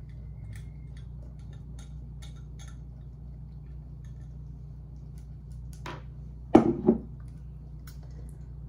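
Light scattered ticking as a glass shaker jar is shaken over a cooking pot, then two or three sharp knocks about six to seven seconds in, as things are set down on a table.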